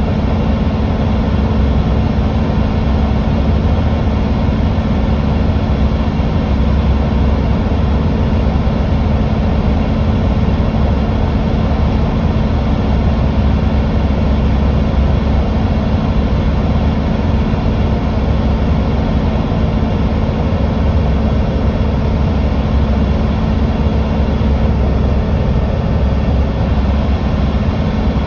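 Mercedes-Benz O530 Citaro C2 G hybrid articulated bus cruising at a steady motorway speed, heard from inside: a steady low engine drone with a constant hum and even road noise, with no change in speed or gear.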